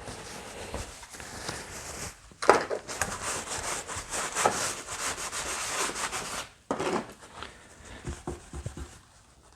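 Rubbing and scrubbing noises, louder and rougher from about two and a half seconds in until a sudden drop about six and a half seconds in, then fainter.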